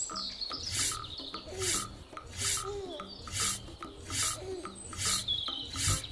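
A quiet passage of children's background music: a rasping, shaker-like scrape on each beat, about one every 0.8 seconds, with faint held notes and little chirping glides.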